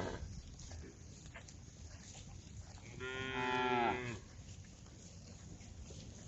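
A cow mooing once, calling to the herd: a single call of about a second, dropping in pitch as it ends.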